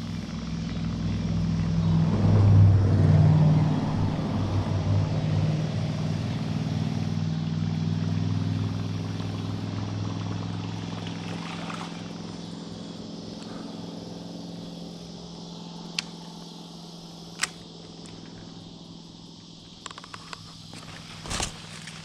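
A motor engine running steadily, loudest a few seconds in and then fading away as it moves off, with a couple of sharp clicks near the end.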